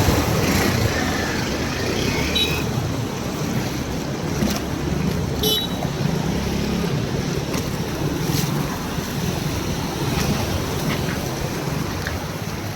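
Steady rush of heavy rain and traffic moving along a waterlogged street, with wind rumbling on the microphone.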